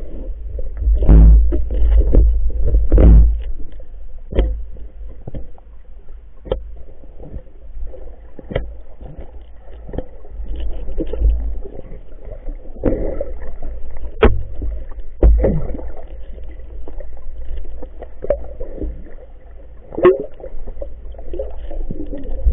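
Muffled underwater sound of a diver moving through river water: low rumbling surges of water with irregular sharp knocks and clicks against the camera.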